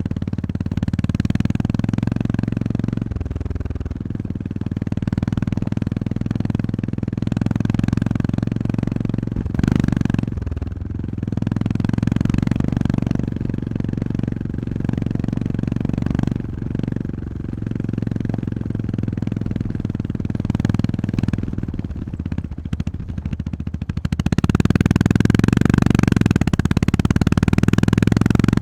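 Honda GB350S's air-cooled single-cylinder engine running while the motorcycle is ridden, the throttle opening and closing with the road. It grows louder about four-fifths of the way through as the bike accelerates.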